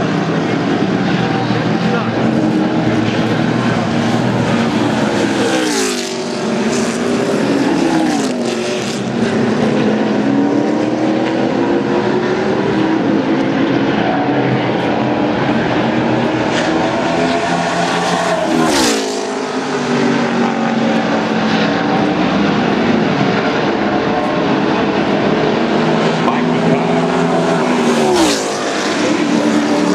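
NASCAR Nationwide Series stock cars' V8 engines running at speed in practice. Cars scream past close by with a falling pitch about six seconds in, again near the twentieth second, and near the end, with the steady drone of other cars around the track in between.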